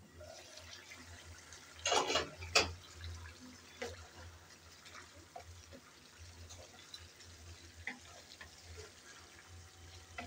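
A glass pan lid lifted and set down with two sharp clanks about two seconds in, then a wooden spatula stirring a thick simmering curry with soft wet liquid sounds and small scrapes, over a low steady hum.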